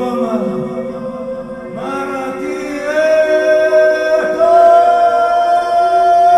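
Live-looped improvised singing: a held vocal drone repeats underneath while new long sung notes are layered on top, swelling to a louder, higher held note about three seconds in.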